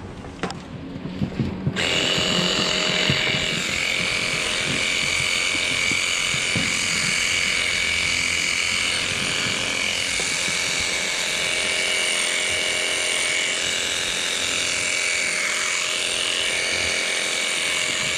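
Handheld electric livestock clipper running steadily with a constant motor whine, trimming the hair of a cow's tail switch; it switches on about two seconds in, after a few light knocks.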